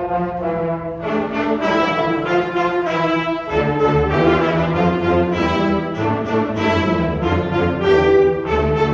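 Concert band playing, brass and woodwinds sounding sustained chords together over tubas. The low brass comes in more strongly about three and a half seconds in.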